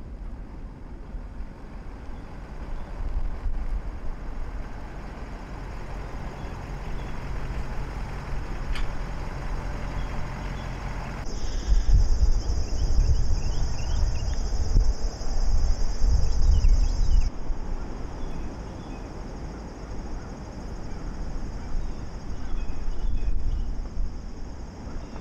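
Wind buffeting the microphone in gusts over a steady rush of ocean surf. About eleven seconds in, a high steady shrill starts with a few faint chirps and cuts off abruptly some six seconds later.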